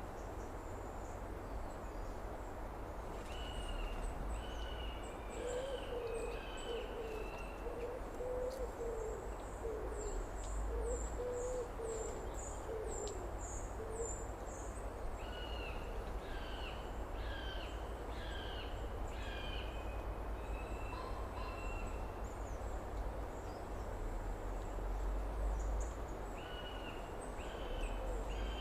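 Outdoor summer ambience of birds calling. A run of low, evenly repeated notes goes on for several seconds in the middle, with groups of higher chirping calls and quick high chirps around them, over a steady low background rumble.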